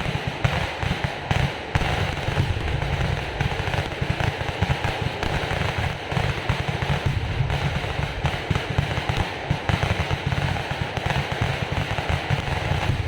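Festival fireworks display (vedikettu): a dense, continuous barrage of rapid firecracker explosions, crackling and banging without a break.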